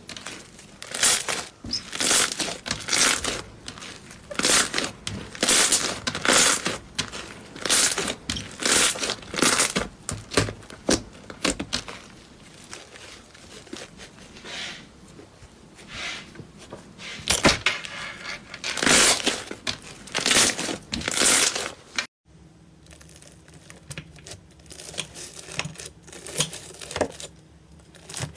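Slime being pressed and squeezed by hand close to the microphone: sticky, crackling squelches about once a second. About two-thirds of the way through, the sound cuts to a quieter stretch of softer, smaller slime sounds.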